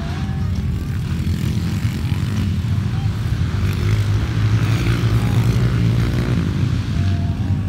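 Underbone motorcycles racing on a dirt track, their engines droning steadily and growing a little louder about halfway through.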